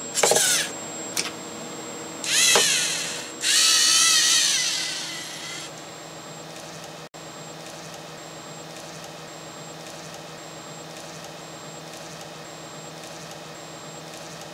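Lego Mindstorms robot's small electric motors whirring in short bursts, the last a longer whine that bends in pitch and fades out, followed by a steady low hum.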